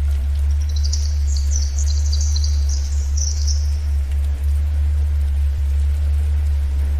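A steady low drone, the theta-wave tone of a relaxation track, runs under faint forest ambience. About half a second in, a songbird sings a rapid high twittering phrase that lasts about three seconds.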